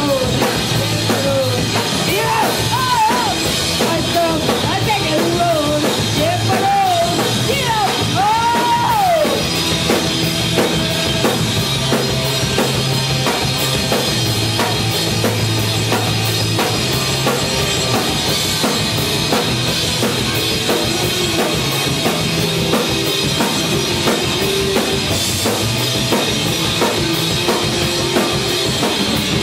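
Rock band playing live: electric bass, electric guitar and drum kit at full volume. A melody line bends up and down in pitch over roughly the first nine seconds, then the band plays on with the drums driving.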